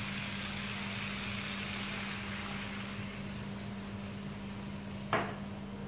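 A glass of water poured into a hot karahi of frying mutton and tomato masala, hissing and sizzling, loudest in the first couple of seconds and then dying down, over a low steady hum. A single knock about five seconds in.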